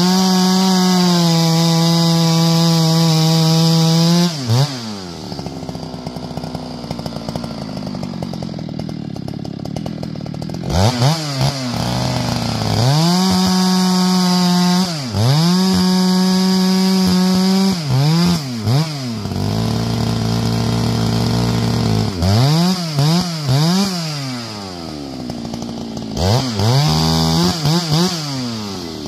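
Two-stroke chainsaw cutting firewood logs, held at full throttle for several seconds at a time, dropping back to idle between cuts and revved in quick short blips.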